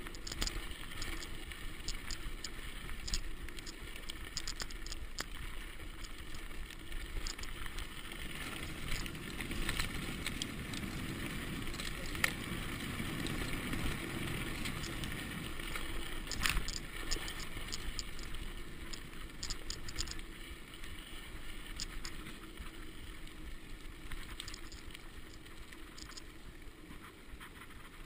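A mountain bike rolling fast down a dirt trail: a steady rush of tyres on dirt with scattered clicks and rattles from the bike, and two sharper knocks about twelve and sixteen seconds in.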